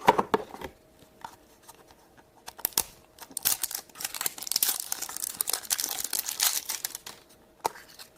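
A toy blind-bag wrapper being torn open and crinkled by hand: a few sharp clicks and taps at first, then a dense run of tearing and crinkling from about three and a half to seven seconds in, and one last click near the end.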